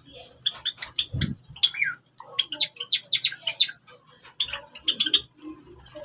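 Java sparrows calling, a run of many short, high chirps. A low thump comes about a second in.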